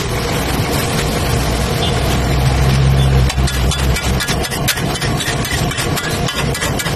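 Metal spatula scraping and clicking on a flat tawa griddle as vegetables and masala are mashed, with the clicks coming more often in the second half. Under it runs a steady low rumble that swells two to three seconds in.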